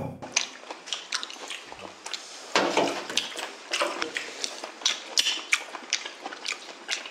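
Close-up chewing of raw sea bream sashimi: many short, wet mouth clicks and smacks.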